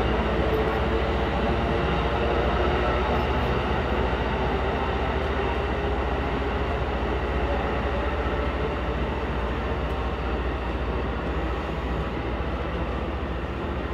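Passenger train running on the station track: a steady rumble with a low hum, easing off slightly toward the end.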